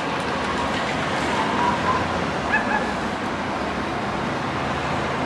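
Race-convoy team cars driving past, their engines and tyres making a steady road noise, with a few short high calls over it.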